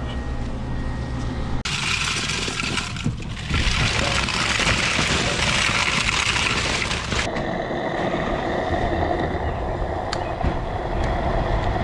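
Vehicle noise: a steady low rumble, broken by a loud rushing hiss that starts and stops abruptly and lasts about five seconds.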